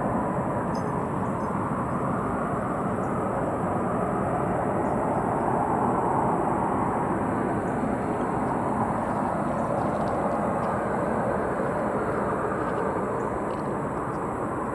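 Steady low rumbling drone heard from the sky, of unexplained origin, easing slightly near the end.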